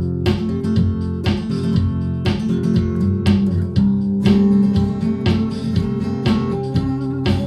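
Guitar being strummed in a steady rhythm between sung verses.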